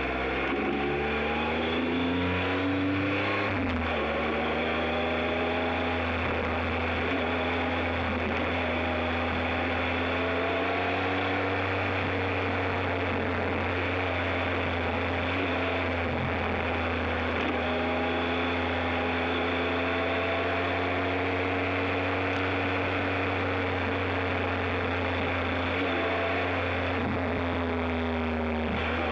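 Motorcycle engine pulling away with rising pitch, dropping at an upshift a few seconds in, then running at a fairly steady cruising speed with small rises and falls in pitch, over a continuous noise of tyres on a dirt track and wind.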